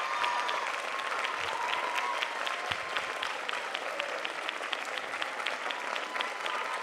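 Theatre audience applauding steadily, a dense patter of hand claps with individual claps standing out.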